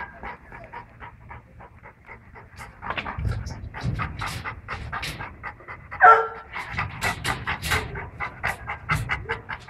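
A young puppy panting in quick, even breaths that grow louder about three seconds in, with one short pitched cry about six seconds in.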